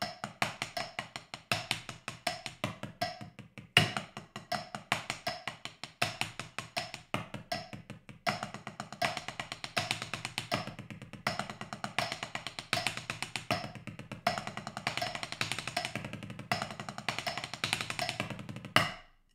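Drumsticks playing fast, accented six-note sticking patterns on a rubber practice pad resting on a snare drum, in phrases with short breaks every two to three seconds. A metronome click runs underneath at 80 beats per minute. The playing stops just before the end.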